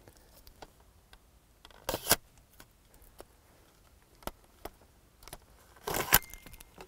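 Fuji FP-3000B peel-apart instant film being pulled by its paper tabs from the holder: two short scraping pulls of paper, about two seconds in and again about six seconds in, the second the louder, with small handling clicks between.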